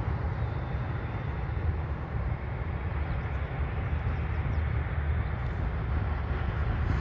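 Jet engines of a distant Ryanair Boeing 737 on the runway: a steady, low rumble.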